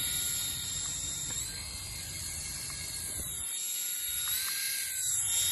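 Small electric motors of a toy helicopter whining as its rotors spin, a steady high whine whose pitch sags a little past halfway and then climbs back up.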